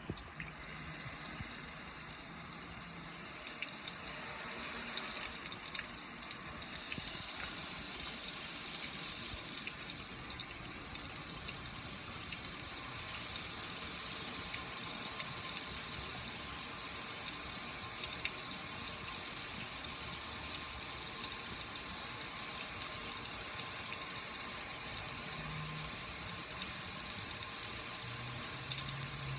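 Water pouring over a metal gas grill and splashing off its lid and control panel, a steady rushing splatter that grows heavier about four to five seconds in, then holds.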